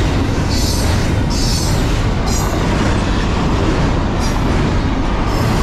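Double-stack intermodal well cars of a freight train rolling past at speed: a steady, loud rumble of steel wheels on the rails, with short high-pitched hissing bursts several times.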